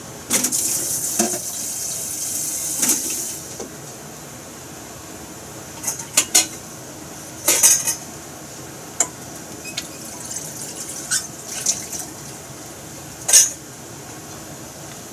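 Chicken skin frying in oil in a frying pan. A steady hiss of sizzling for the first few seconds, then scattered sharp pops and crackles of spattering oil, the loudest near the end.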